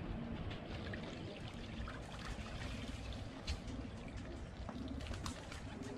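Water pouring and trickling steadily.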